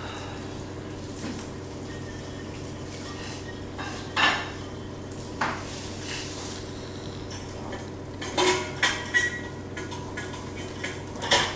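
Steady room hum with a few short, scattered clinks and knocks, more of them in the second half.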